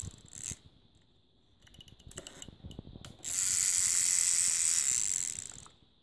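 Plastic wind-up toy dog: a few sharp clicks as it is wound, then its clockwork motor buzzes steadily for about two and a half seconds and runs down near the end.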